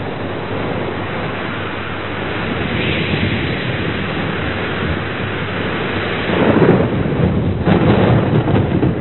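Thunderstorm: a steady hiss of rain, with thunder rumbling twice near the end.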